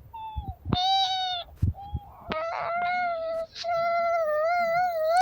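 A child's high-pitched voice holding several long, slightly wavering notes in a row, like drawn-out wailing.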